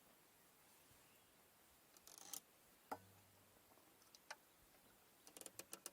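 Near silence broken by a few faint sharp clicks and knocks, with a quick run of small clicks near the end.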